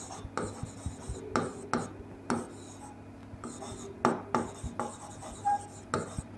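Marker pen writing on a whiteboard: about a dozen short, irregular scratchy strokes, with a brief faint squeak about five and a half seconds in.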